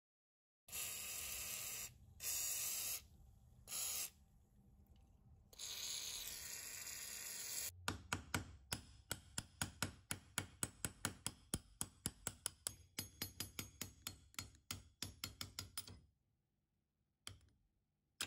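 Several short hissing bursts, then a long run of quick, even hammer taps, about five a second, on a pin punch driving a shaft out of an old hand-cranked drill's gear frame.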